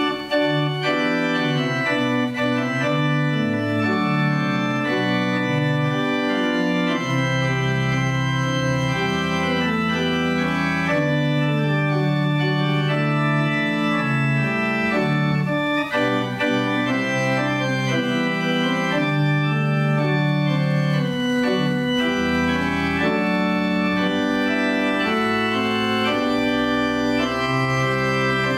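Pipe organ playing sustained chords that change in steps, with deep pedal notes joining about seven seconds in.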